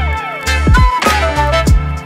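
Instrumental music with a steady bass line, deep drum hits and melodic notes, with no speech.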